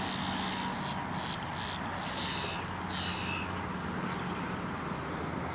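Birds calling: several short, harsh, high calls in the first three and a half seconds, over a steady low hum.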